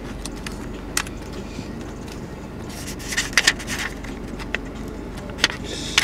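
Small plastic and metal clicks and rattles as a laptop SO-DIMM RAM module is pushed into its slot and handled: a sharp click about a second in, a cluster of clicks around three seconds in, and another near the end.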